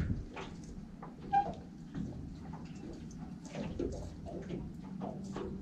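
Small bait knife working along the backbone of a slimy mackerel on a cutting board: faint, scattered scrapes and clicks of the blade through flesh and bone, with one brief squeak about a second and a half in.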